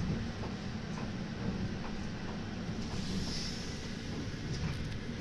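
Steady low hum inside an electric commuter train carriage, with a brief soft hiss about three seconds in.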